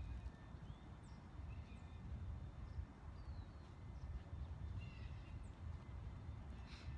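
Outdoor ambience: an uneven low rumble of wind on the microphone, with scattered short, faint bird chirps.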